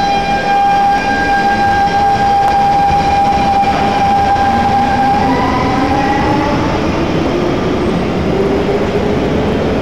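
SMRT C651 metro train pulling away from the platform, its GTO-VVVF traction inverters whining: a steady high tone for the first five seconds or so, then tones gliding upward as the train gains speed, over the rumble of the wheels on the rails.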